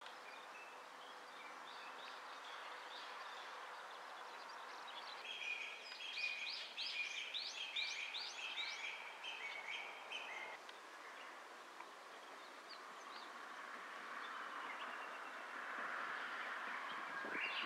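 Birds chirping and singing over a steady outdoor background hiss, with a run of quickly repeated rising song notes from about five to ten seconds in.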